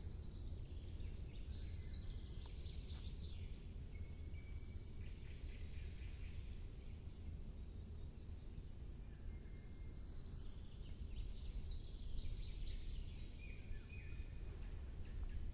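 Wild birds singing in two bouts of twittering song, one a second or so in and another near the end, over a steady low rumble.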